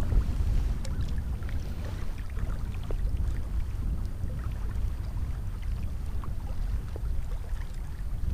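Wind buffeting the microphone as a steady low rumble, with a few faint scattered ticks.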